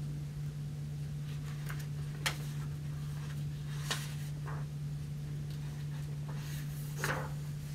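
A few soft rustles and clicks of paper as a hardcover picture book's pages are handled and turned, over a steady low hum.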